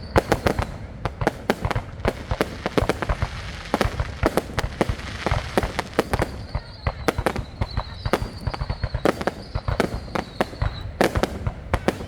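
Fireworks going off: a rapid, irregular string of sharp bangs and pops, several a second, with a faint high whistle running under them for a few seconds past the middle.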